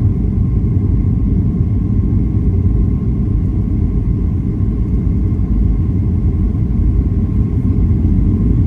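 Steady low rumble of a Boeing 737's CFM56 jet engines and airflow heard inside the cabin, with a faint steady whine above it.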